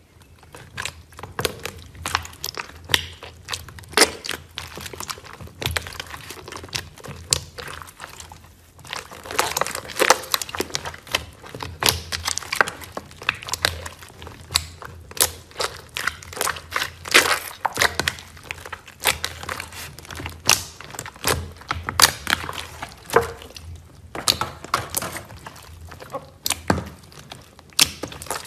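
Hands squishing and kneading a large lump of foam-bead slime, giving dense, irregular crackling and popping clicks, with a brief lull near the end.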